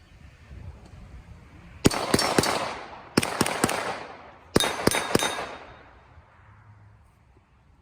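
Glock 34 9mm pistol fired in three quick strings of three shots each, with a pause of about a second between strings. Each string is followed by a long fading ring, with steel targets clanging as they are hit.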